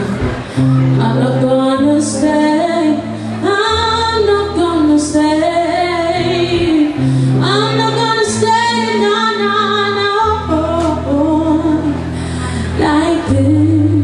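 A woman singing a slow melody live, accompanied by an electric guitar playing held low chords that change every second or two.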